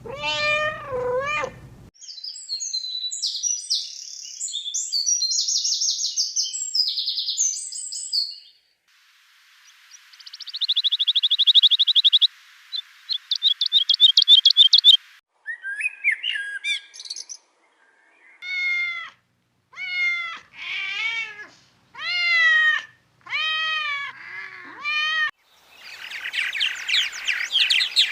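A run of short animal-sound clips: a cat meowing, then small birds chirping and trilling rapidly, then a series of about eight short meows roughly one a second, and near the end a burst of dense bird chatter.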